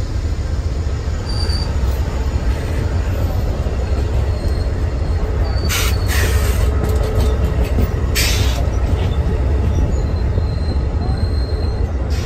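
A train passing close by: a heavy, steady rumble with two short bursts of hiss about six and eight seconds in.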